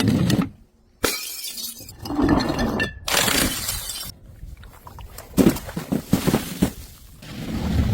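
Glass bottles shattering and breaking, several separate smashes one after another with sharp starts and stops, glass clinking and crunching as it breaks.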